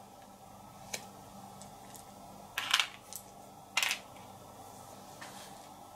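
Small game pieces clicking and clattering as they are picked up and set down on the board: a light click about a second in, then two louder short clatters near the middle and a few faint clicks after.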